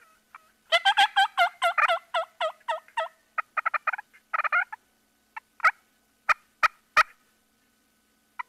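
Turkey calling: a fast run of pitched notes at about seven a second for a little over two seconds, then a few shorter bursts, then five single sharp notes spaced about half a second apart.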